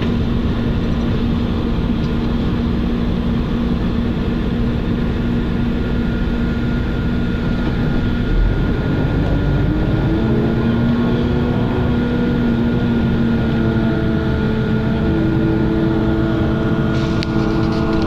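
Engine and road noise inside a moving vehicle's cabin, a steady hum under a constant rumble. About eight seconds in there is a short low thump, after which the engine note comes back higher and climbs again a few seconds later as the vehicle accelerates.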